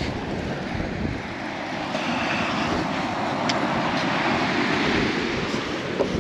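Steady wash of ocean surf with wind on the microphone, under a faint steady hum.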